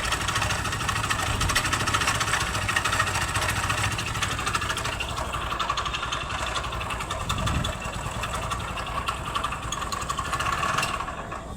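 Hero Splendor motorcycle's single-cylinder four-stroke engine idling with a rapid mechanical knock, dying away near the end. The mechanic traces the knock to play in the connecting rod and worn crankshaft main bearings.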